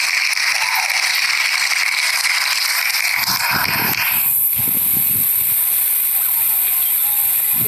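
A loud, steady hissing noise sound effect. About four seconds in it changes to a thinner, higher hiss, with a few low thumps around the change.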